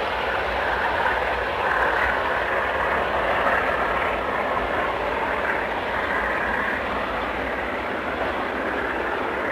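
Class 47 diesel-electric locomotive's Sulzer 12LDA28-C twin-bank engine working hard under load, hauling twelve bogie tank wagons up the steep 1 in 37¾ gradient. The engine gives a steady, unbroken drone with a low rumble beneath it.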